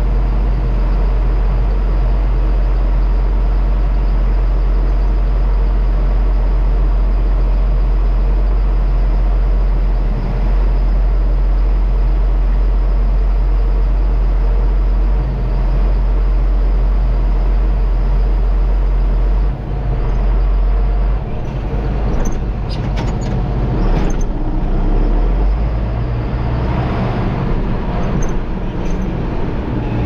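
Farm tractor engine running with a steady low drone. About two-thirds of the way through the sound shifts and a few sharp clicks or knocks come through.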